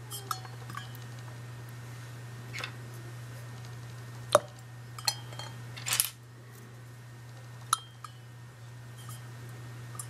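Plastic keycaps clinking sharply against a glass of water, about six separate knocks spread out, one near the middle a little longer. A steady low hum runs beneath.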